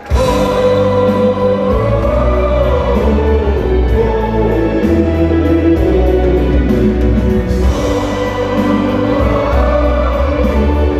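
Live folk-rock band playing at full volume, with singing over a steady drum beat, cymbal ticks and a heavy bass line.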